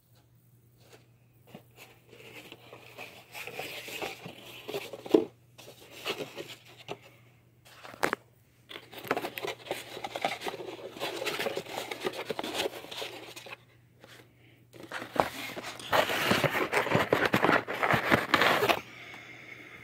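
Hands handling a cardboard box and a plastic card case: rustling and scraping on and off, with a couple of sharp knocks, and a longer stretch of rustling near the end.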